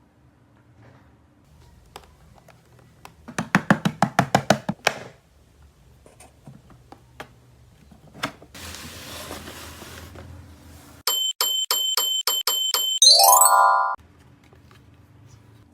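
A battery-powered electronic toy plays its sound effect: a string of quick high beeps, then a fast rising chirpy jingle. Before that there is a quick run of about a dozen taps and a short hiss of toy handling.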